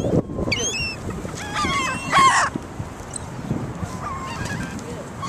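Seagulls calling, a series of harsh cries in two groups, the loudest about two seconds in.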